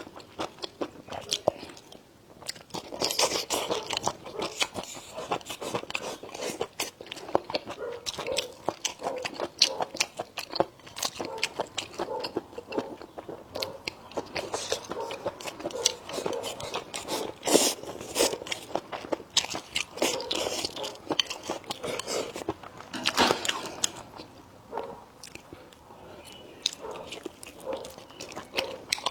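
Close-miked eating: a person biting and chewing crunchy food, with a steady run of small crunches and wet clicks and a few louder bites partway through.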